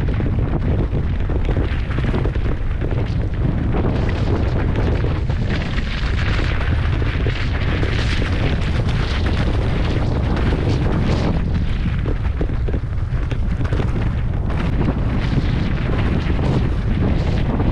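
Heavy wind buffeting on a rider-mounted camera microphone during a fast downhill mountain-bike run. It is a steady, loud rumble broken by frequent jolts and rattles from the bike going over rough ground.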